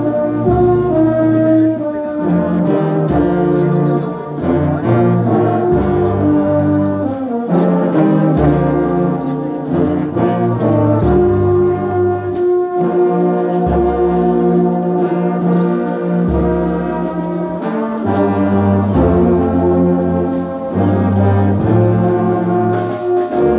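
Brass band led by a rank of euphoniums playing a slow tune in long held chords, over a deep bass line that moves to a new note every second or two.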